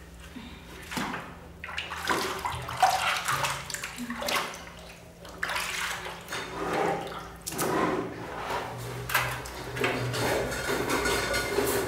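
Bathwater splashing and sloshing in a large plastic basin as it is stirred by hand, in irregular bursts.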